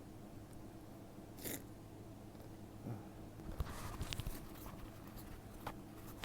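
Quiet pause between hay-fever sneezes, with faint close-up noises: a short hiss about a second and a half in, then soft clicks and rustling around four seconds in. A sudden loud sound starts right at the end.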